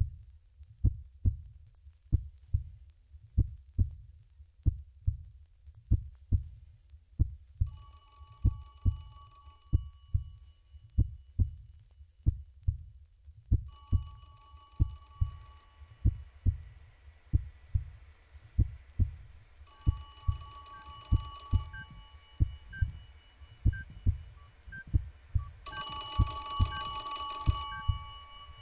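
Music-video soundtrack built on a steady heartbeat-like low thud, about one and a half beats a second. Over it come four bursts of high ringing tones about two seconds long, the last the loudest, and faint regular ticks from about twenty seconds in.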